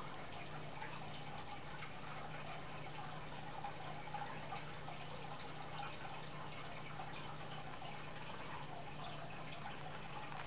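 Room tone: a steady hiss with a low hum and no distinct sound events.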